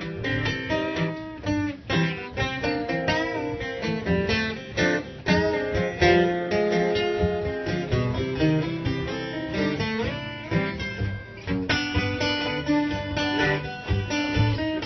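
Acoustic guitar fingerpicked in a country blues instrumental break: a quick run of plucked notes over a low bass line, with no singing.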